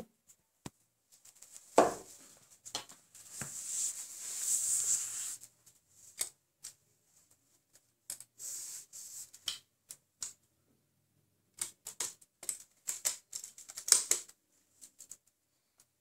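Scattered plastic clicks and rattles from a LEGO-brick rifle and its handling. There is a sharp snap about two seconds in and a cluster of louder clicks near fourteen seconds, with stretches of rustling hiss in between.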